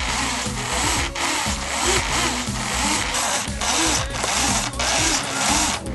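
Small electric motor and propeller of a HobbyZone Super Cub RC plane whirring steadily in flight.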